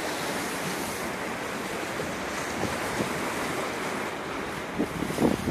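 Sea water washing against a rocky breakwater, a steady rush, with wind on the microphone. A few brief bumps near the end.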